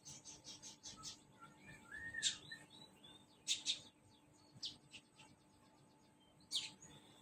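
A small caged songbird calling: a fast run of high chips at first, then a handful of sharp single calls several times over, with a few soft, lower warbled notes about two seconds in.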